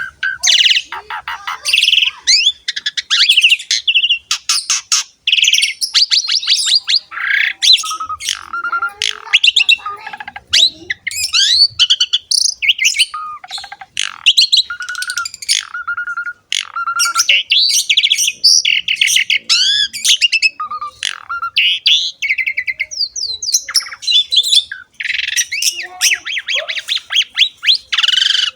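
Asian pied starling (jalak suren) singing continuously and vigorously: a long, varied run of whistles, fast trills, chattering notes and rising and falling glides with only brief gaps.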